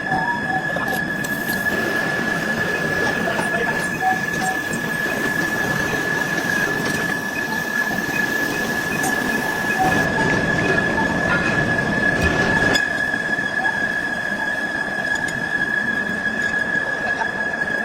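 Heavy lathe cutting metal: a steady high-pitched squeal over a rough, continuous grinding noise.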